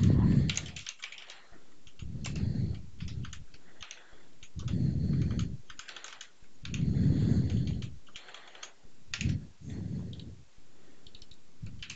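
Typing on a computer keyboard, irregular bursts of key clicks, with several low, muffled swells about a second long between the bursts.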